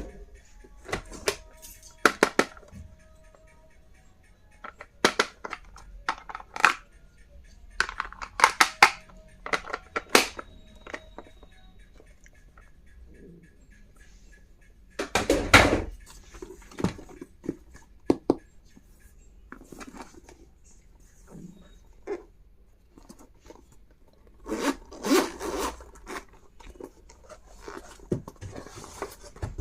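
Stationery packaging being handled and opened by hand: irregular sharp clicks, taps and tearing sounds, with the loudest burst about halfway through.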